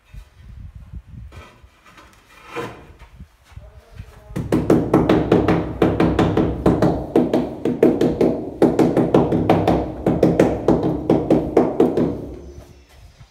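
White rubber mallet tapping a large porcelain wall tile into fresh tile adhesive to bed it level. After a few softer knocks, a fast, steady run of dull taps starts about four seconds in and lasts about eight seconds.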